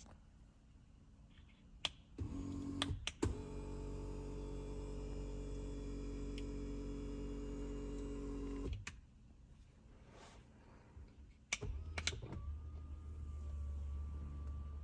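Tesla power passenger seat motor running as the seat is driven from a switch: a click, then a steady motor hum for about six and a half seconds that stops abruptly. After a few more clicks, a second, lower hum starts about twelve seconds in.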